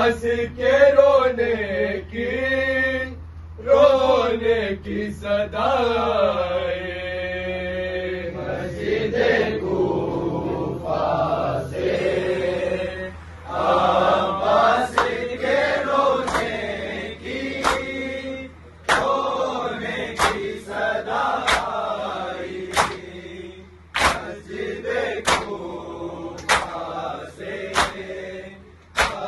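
Men's voices chanting a Shia noha (mourning lament), and from about halfway through, sharp rhythmic slaps of hands on bare chests (matam) at about one a second, keeping time with the chant.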